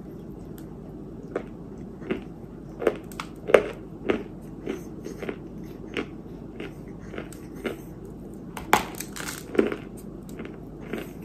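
Close-miked biting and chewing of a thick chunk of white dirt (kaolin clay): irregular dry crunches and snaps, with the loudest about three and a half seconds in and near nine seconds.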